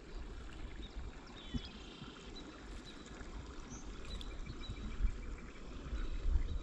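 A kayak moving slowly over calm water: a steady low rumble of wind and water on the hull-mounted microphone, with an occasional faint knock. Faint high bird chirps come through, a short run of them about a second in and a row of small ticks near the middle.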